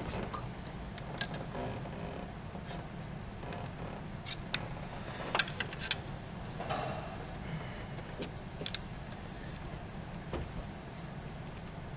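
Scattered light metallic clicks and taps of hand tools on the valvetrain of a B207E cylinder head while a valve is pushed down to free a rocker arm. These sound over a steady low hum.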